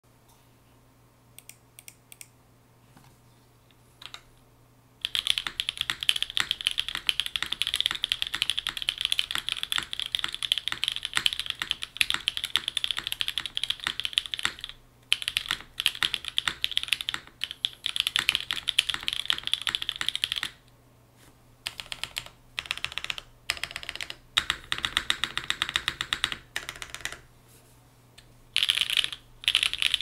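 Neo80 mechanical keyboard with Pleiades Subuwu V2 switches on a POM plate, gasket-mounted with no foam and DCX keycaps, being typed on. A few single keystrokes come first. Then comes fast continuous typing for about fifteen seconds, then short bursts of typing with brief pauses between.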